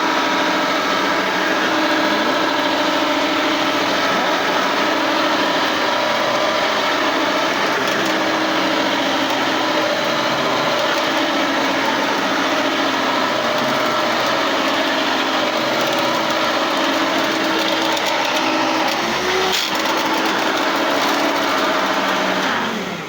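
Hoover Elite 2 upright vacuum cleaner's motor running steadily at full power while it vacuums up a test mess, then switched off right at the end, its tone falling as it winds down.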